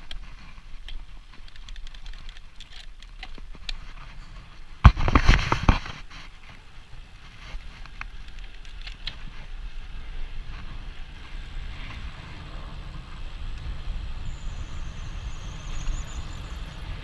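Wind buffeting the microphone and a steady rumble from a road bike coasting fast downhill, with scattered ticks in the first few seconds and a loud blast of wind noise about five seconds in.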